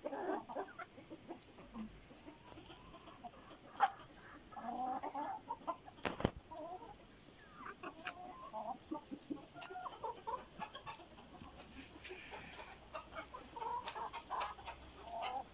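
Chickens clucking softly and intermittently as they feed, with a few sharp clicks among the calls, the loudest about six seconds in.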